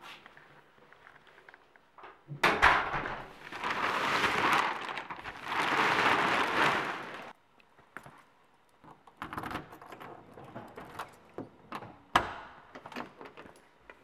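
Door and handling noises: a loud rushing noise in two stretches of about two seconds each, then scattered clicks, knocks and a jingle of keys, with one sharp knock about twelve seconds in, as a car door is reached and opened.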